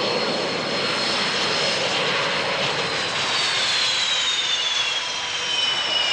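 Sukhoi Su-27 Flanker's twin afterburning turbofan engines running loud as the jet rolls along the runway on afterburner. A high whine falls in pitch from about three seconds in as the aircraft passes.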